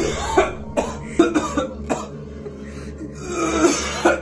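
A man coughing hard in a string of short, harsh coughs, choking on the burn of a super-hot chilli chip.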